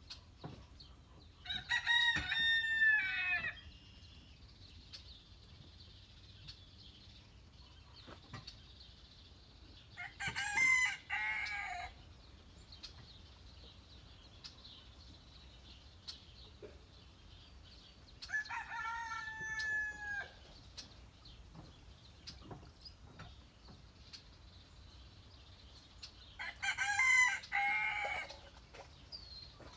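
Rooster crowing four times, about eight seconds apart, each crow lasting about two seconds.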